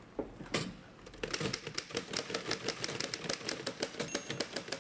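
Two manual office typewriters being typed on at once: a couple of separate keystrokes, then from about a second in a fast, uneven clatter of key strikes.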